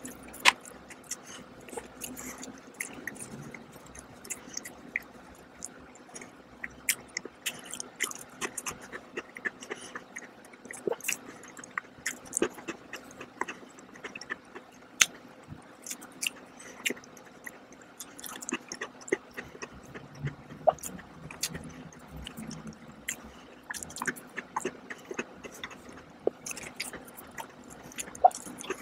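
Close-miked chewing of crisp cookies: irregular sharp crunches and mouth clicks throughout.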